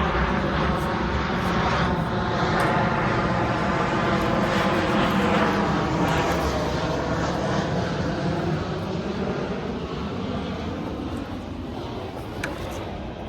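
An airplane flying over, growing louder to a peak about five seconds in and then fading away.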